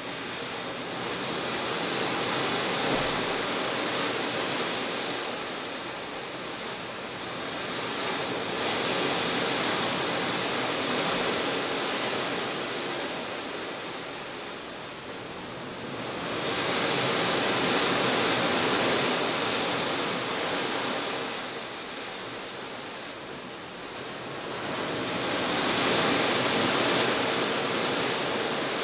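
Sea water rushing along the hull of a moving cruise ship, a steady hiss that swells and fades every eight seconds or so as the waves pass.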